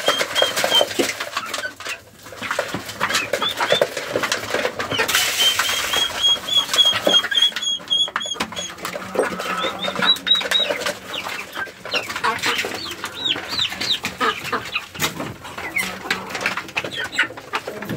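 Chickens and young chicks peeping and clucking as they feed, with runs of short high peeps a few per second and many sharp pecking clicks at the feed pans.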